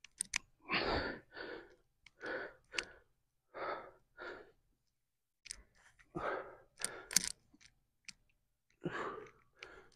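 A man breathing hard from exertion through a set of weighted dumbbell squats: short forceful exhales, mostly in pairs about half a second apart, with a pause near the middle. A few sharp clicks fall among the breaths.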